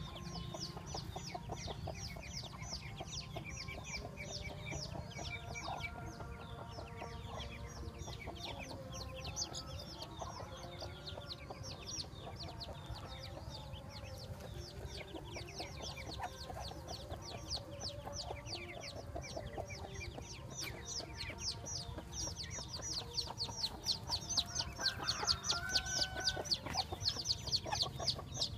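A brood of Muscovy ducklings peeping nonstop in quick, high-pitched calls that grow louder near the end, over a steady low rumble.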